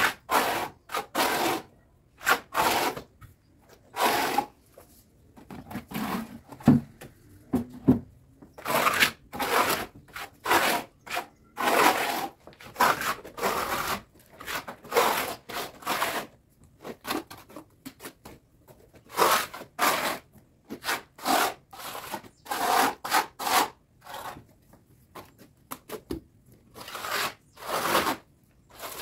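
Hand tool spreading and scraping cement mortar over a brick wall in repeated short rasping strokes, irregularly spaced, about one or two a second, with a couple of dull knocks a little after six seconds in.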